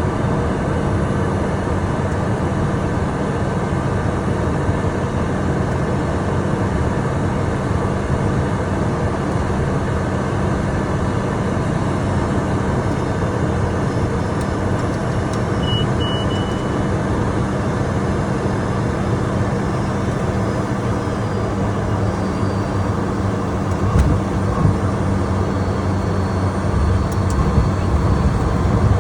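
Steady cockpit noise of a Cessna Citation 501 business jet: its Pratt & Whitney JT15D turbofans running under a rush of airflow, with a low hum. A short high beep sounds about halfway through, and a few low thumps come near the end.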